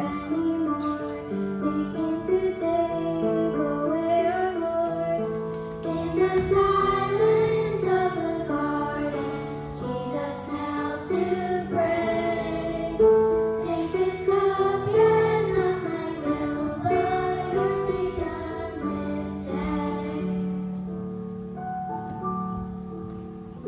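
A song with a high voice singing a melody over held instrumental accompaniment.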